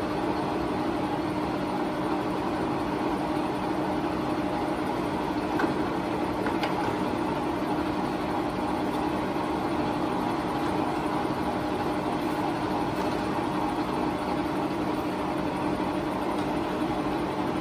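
Enco model 111-3940 engine lathe running with no load, its 7-1/2 horsepower motor and headstock gearing giving a steady, even hum as the chuck spins, with a couple of faint clicks about six seconds in.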